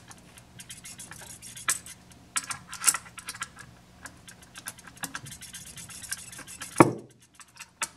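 Scattered small metallic clicks and clinks of a half-inch wrench working the nuts on lead-acid battery terminals, checking that they are tight, with one louder knock near the end.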